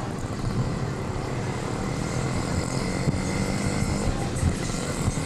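Steady road traffic noise, with vehicle engines running and no single event standing out.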